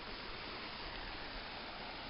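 Steady, even rush of water from a rocky mountain stream and waterfall.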